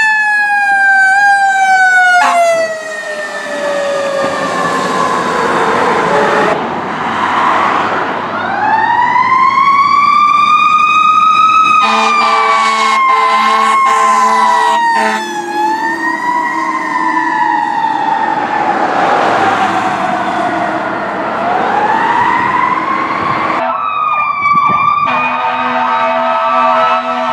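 Fire truck sirens: a wailing siren that slowly falls in pitch and winds back up several times. It is joined by repeated horn blasts about halfway through and by steady horn-like tones near the end.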